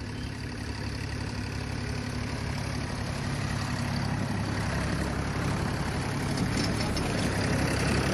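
TAFE 30 DI diesel tractor engine running steadily as the tractor drives up and past, growing louder as it comes closer.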